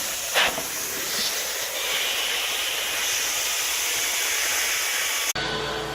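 Truck-mount carpet extraction wand at work: a steady hiss of hot solution spraying and being sucked back up through the wand, with a brief louder burst about half a second in. Near the end the hiss cuts off abruptly and a lower steady hum takes its place.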